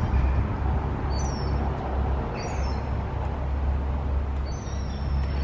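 Small birds calling: short high falling chirps about a second in and again around two and a half seconds, then a longer high whistle near the end, over a steady low rumble of city traffic.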